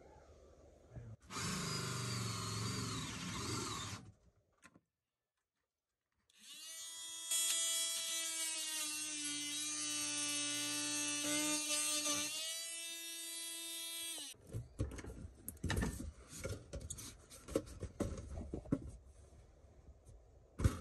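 DeWalt cordless drill running in two stretches: first a rough, noisy run of about three seconds, then after a short silence a steady high whine for about eight seconds that sags briefly near its end. Then irregular clicks, knocks and scraping of a sheet-metal vent duct being handled and fitted into the hole.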